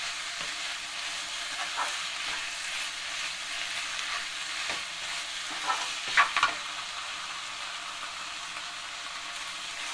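Spiced chicken filling sizzling in a pan while a spatula stirs it, with a steady hiss and a few short scrapes against the pan, the loudest a little past six seconds in.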